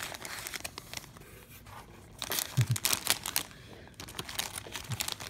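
Plastic lure packaging crinkling and rustling as hands handle and pull open a bag of soft plastic baits, with a louder burst of crackling in the middle.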